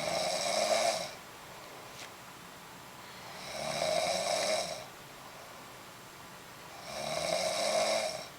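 A woman snoring in deep sleep: three snores, one every three and a half seconds or so, each lasting about a second.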